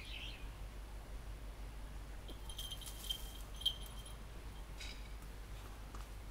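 A small metal bell jingles for about a second, starting about two and a half seconds in, with a clear ringing tone and light clicks. A bird chirps faintly at the very start.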